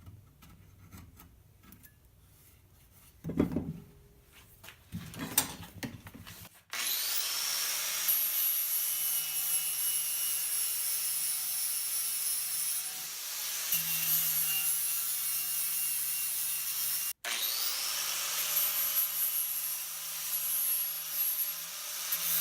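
A few faint scrapes, then about six seconds in an angle grinder spins up and runs steadily with a high whine, grinding. About two thirds of the way through it cuts off abruptly and spins up again.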